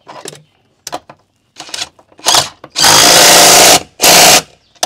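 DeWalt cordless driver running on a seat-mounting bolt: a few short blips, then two longer runs of about a second and half a second, very loud.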